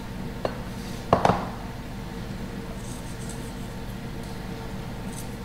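Kitchen containers and utensils being handled on a countertop: a light click, then a louder knock a little after one second in, over a steady room hum.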